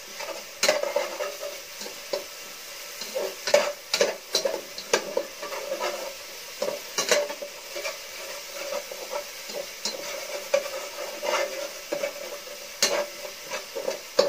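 Minced garlic and onion sizzling in hot oil in a pot while a spatula stirs and scrapes against the pan, making irregular sharp scrapes and clicks over a steady frying hiss: the sauté (gisa) step, browning the aromatics.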